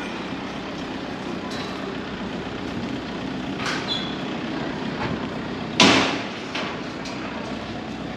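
City street ambience with a steady hum of traffic, broken about six seconds in by one sudden loud noise that dies away within half a second.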